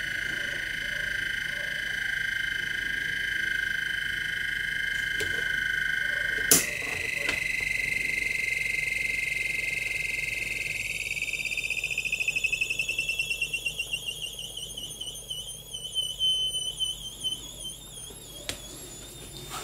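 High-pitched electronic whine from a Bedini SSG self-oscillating motor generator's pulsed coil and rotor, with a sharp click about six and a half seconds in. Around ten seconds in the whine rises steadily in pitch as the rotor speeds up, then wavers and pulses near the end.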